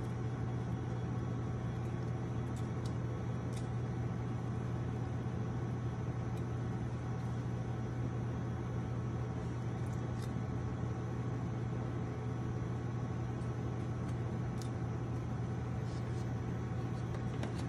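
Steady low hum of commercial kitchen equipment, even and unchanging throughout, with a few faint clicks of a utensil as guacamole is spread on a bun.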